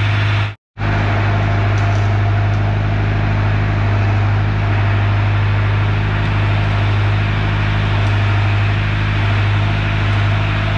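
Diesel engine-driven welding machine running steadily, a deep even hum, under the continuous crackling hiss of stick (rod) welding. The sound cuts out briefly about half a second in.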